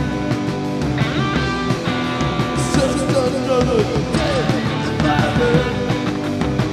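Live rock band playing: a guitar line with bending notes over steady drum hits.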